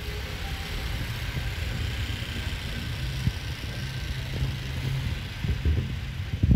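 Outdoor city night ambience: a steady low rumble with an even hiss above it and irregular low thumps.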